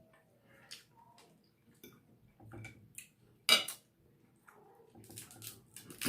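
Cutlery and dishes clinking during a meal: scattered light clicks and knocks, with one sharp, louder clack about halfway through and a few quick clicks near the end.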